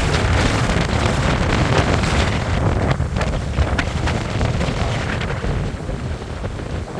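Hurricane-force wind buffeting the microphone with a heavy, gusting rumble, easing slightly near the end.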